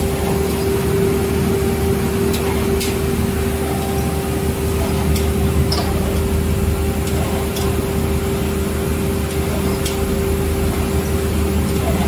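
Textile machinery feeding billiard felt over its rollers, running with a steady hum and a constant mid-pitched tone, with a few faint ticks.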